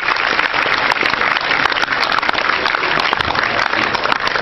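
A large audience applauding in a hall: dense, steady clapping.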